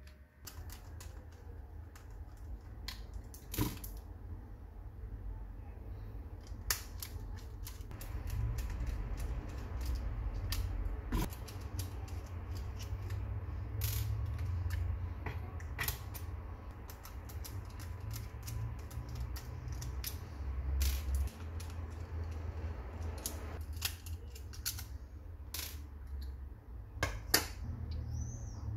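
Scattered plastic clicks and taps as a Mercedes W212 door window-and-mirror switch panel is handled and taken apart, its small Torx screws removed, over a steady low rumble.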